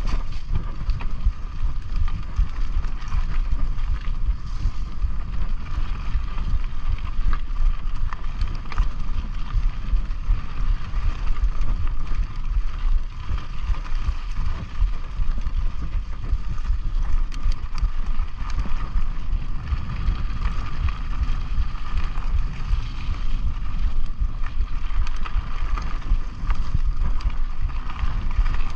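Mountain bike ridden along a dirt trail: a steady low rumble of wind and ride vibration on the microphone, with a steady high hum and scattered small rattles and clicks from the bike over the trail surface.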